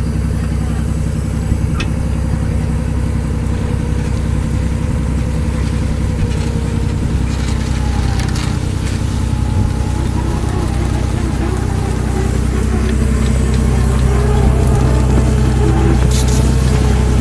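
Fishing boat's engine running with a steady low drone, growing a little louder over the last few seconds.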